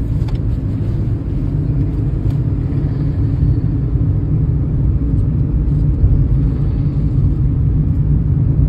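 Steady low rumble of engine and road noise inside the cabin of a small Suzuki hatchback driving along a road.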